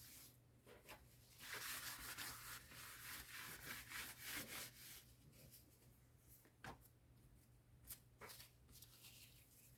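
Faint rubbing of paper under the hands on a journal page, in short strokes during the first half, then a few light taps and clicks.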